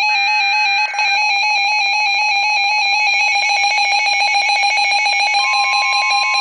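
Weather radio receivers, a Midland WR-100 and a RadioShack 12-382, sounding their electronic alert tones together: a loud, rapidly pulsing alarm tone. About five seconds in, a second steady single tone joins.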